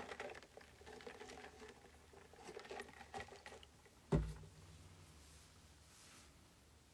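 Faint handling noise: light rustling and small clicks, then a single low thump about four seconds in.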